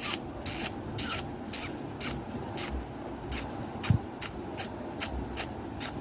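A run of short, scratchy rasping noises, two or three a second, as a finger strokes the head of an angry, open-beaked Indian ringneck parakeet.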